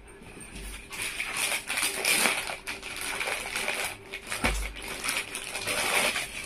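Crinkling and rustling of suit fabric and its packaging being handled and unfolded, with irregular crackles.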